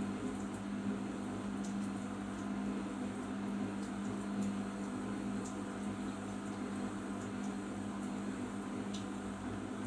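Arçelik 5083 washing machine running with a steady low hum and watery churning, with no rise or fall in pitch.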